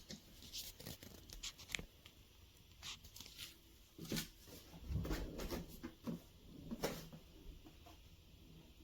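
Faint scattered clicks and knocks of hardshell suitcases being handled, with a short low rumble about five seconds in.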